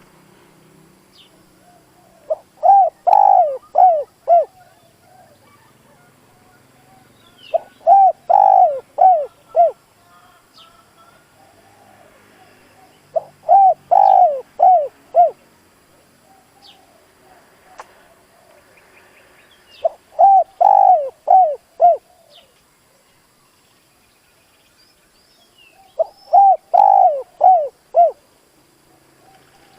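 Spotted dove cooing: five phrases about six seconds apart, each a quick run of four or five coos. It is the call a decoy dove gives to provoke wild doves. Faint chirps of small birds sound in between.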